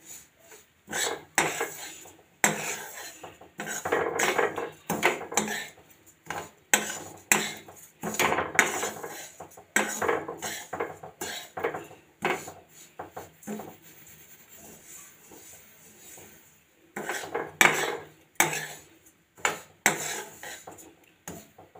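Slotted steel spoon scraping and stirring sesame seeds around a steel kadhai as they roast, in repeated irregular strokes with the seeds rustling against the pan. The strokes ease off into a quieter spell past the middle, then pick up again.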